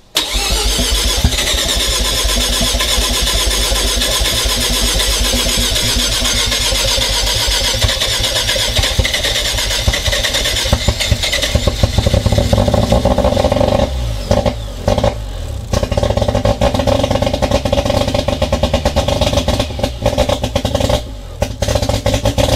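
Mazda 13B twin-rotor turbo rotary engine catching and running on its first start, very loud and raw with no exhaust fitted past the downpipe, kept alive on the throttle. It stumbles with a few brief cut-outs about two-thirds of the way through and again near the end.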